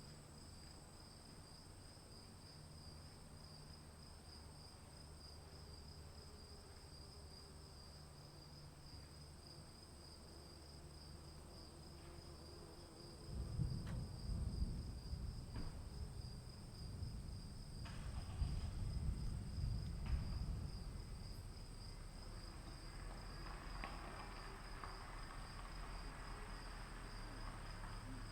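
Insects chirring steadily on two high, even tones. About halfway through, a long low rumble of distant thunder rolls in, swells for several seconds and then eases off, while the insects carry on.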